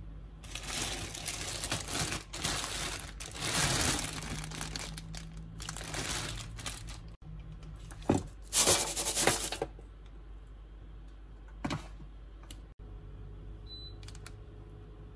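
Crinkling and rustling of paper or plastic wrapping being handled, in two stretches, with a single knock about eight seconds in. After about ten seconds it goes quieter, with one faint click near twelve seconds.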